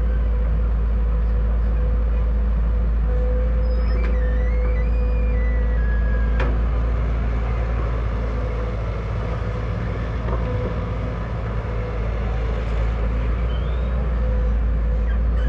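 Heavy diesel earthmoving machine running steadily with a deep engine rumble, with high metallic squeals and two sharp clanks, about four and six and a half seconds in.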